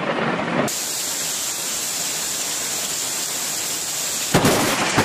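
Heavy rain pouring down in a steady hiss. Near the end, a sudden sharp crack of thunder, followed by a low rumble under the rain.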